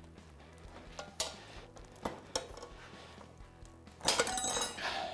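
Steel tire irons clinking against each other and the dirt bike wheel's rim as they are levered to pry the tire bead off: a few faint knocks, then a run of sharp metallic clinks about four seconds in.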